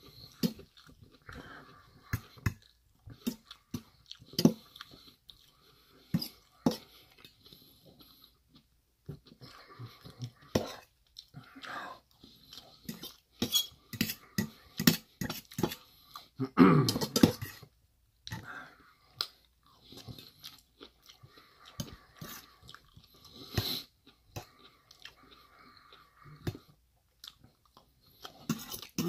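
Close-miked chewing of a tofu curry dish: irregular wet mouth clicks and smacks with some crunch, and one louder, longer mouth sound about seventeen seconds in.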